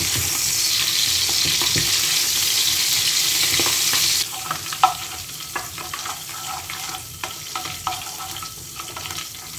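Olive oil sizzling in a frying pan as anchovy fillets melt into it, stirred with a wooden spoon. The sizzle drops sharply about four seconds in, leaving quieter frying with scattered knocks and scrapes of the spoon on the pan.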